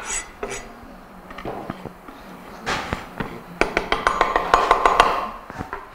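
Wooden cutting board knocked and scraped against the rim of a stainless steel stockpot as chopped herbs are tipped off it, making a quick run of sharp taps and clatter in the second half.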